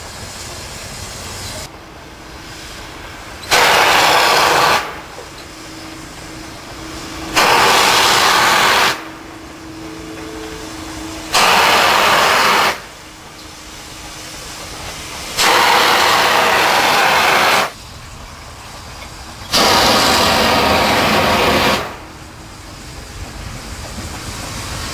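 Steam locomotive's boiler blowdown valve opened in repeated blasts: five loud hissing bursts of steam, each a second or two long and about four seconds apart, with quieter running noise between them. The blowdown clears sediment from the boiler, needed often because the feed water is poor.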